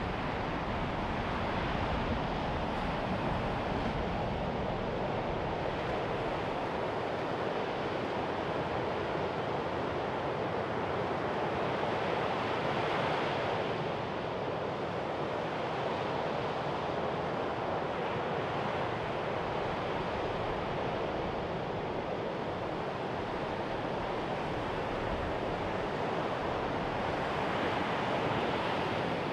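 Mediterranean surf breaking on a sandy beach: a steady wash of waves that swells a little about halfway through and again near the end.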